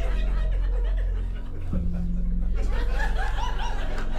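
Background music held on sustained low notes that change about two seconds in, with audience chuckling and laughter.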